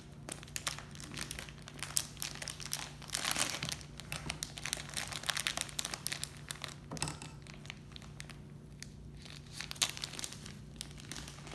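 Plastic packaging crinkling and rustling as it is cut open with scissors and pulled apart by hand, in irregular crackly flurries with louder bursts about three and seven seconds in.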